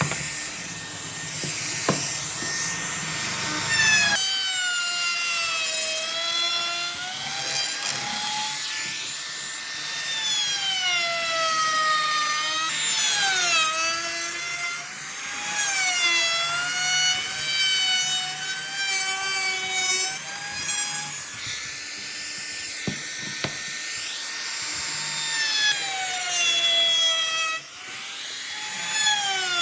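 High-speed electric power tool's motor whining as it works wood, its pitch dipping and recovering again and again as the cut loads and releases it. About four seconds in, it takes over from a rougher, noisier sawing or rubbing sound.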